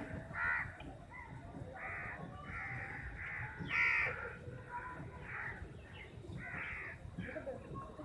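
Several crows cawing, harsh overlapping caws in quick succession, about one to two a second, with a louder caw about four seconds in.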